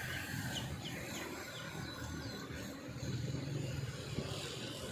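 Steady low outdoor rumble that grows a little louder in the second half, with a few short, quick falling bird chirps in the first couple of seconds.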